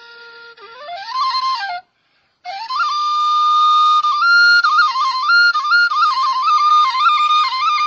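Background music: a solo flute playing a melody. A low held note rises into a higher phrase, the music cuts out briefly about two seconds in, then resumes as a busy line of quick up-and-down ornaments around one held pitch.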